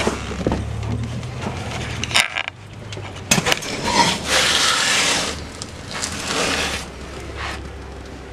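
An elephant rubbing and pressing against an open safari vehicle: scraping and rustling with a few sharp knocks, over a low steady hum.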